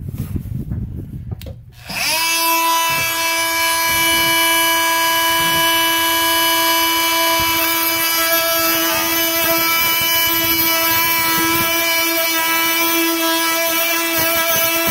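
Oscillating multi-tool starting about two seconds in and running with a steady buzz, trimming the last bit of the drain hole around the bathtub's drain.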